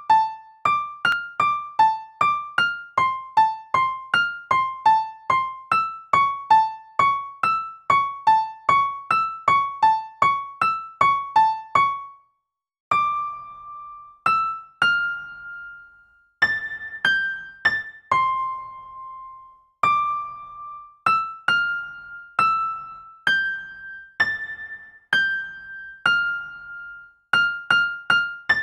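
Piano app playing a tune one high note at a time. For about twelve seconds a short figure repeats quickly, about three notes a second. After a brief pause, a slower melody follows with longer-held notes.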